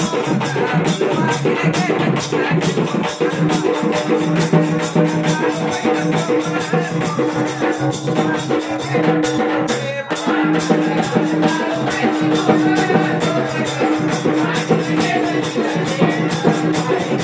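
Live devotional folk music: fast, dense drumming and shaker-like percussion over steady held tones, with a brief break about ten seconds in.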